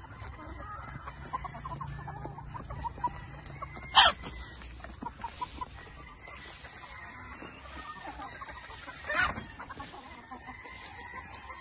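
A flock of gamecocks clucking as they feed, with two sudden, short, much louder sounds from the birds, about four seconds in and again about nine seconds in.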